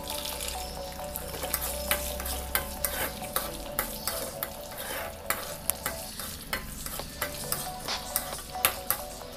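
Groundnuts, garlic cloves and lentils frying in oil in a pan: a steady sizzle with frequent sharp clicks and scrapes as a steel spoon stirs them against the pan.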